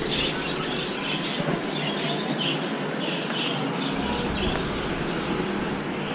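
Steady background din of a busy shopping street, heard while walking, with short high chirps repeating throughout.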